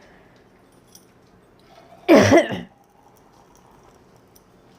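A woman gives a short, loud cough about two seconds in, from food that went down the wrong pipe.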